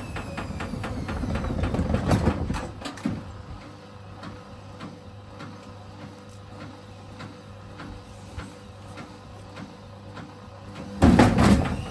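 Elin washing machine drum turning with its door open and wet clothes inside, knocking and rattling in a quick regular rhythm that builds to a loud peak about two seconds in. It then settles into quieter steady rhythmic knocking, and a sudden loud burst of banging comes near the end.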